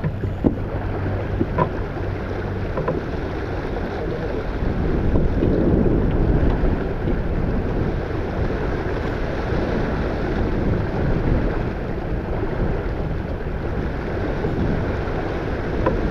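Wind buffeting the microphone over the rush of water along the hull of a small keelboat sailing downwind, swelling a little about five seconds in. A few light clicks sound in the first three seconds.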